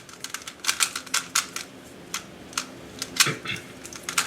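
GAN 356 i 3x3 Bluetooth speedcube being turned fast during a timed solve: irregular runs of quick plastic clicks and clacks as the layers are twisted.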